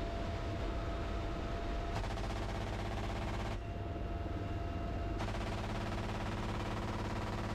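GAU-21 .50-calibre door machine gun on a UH-1Y Venom helicopter firing rapid bursts: one about two seconds in and another starting about five seconds in. The helicopter's steady rotor and engine noise runs underneath.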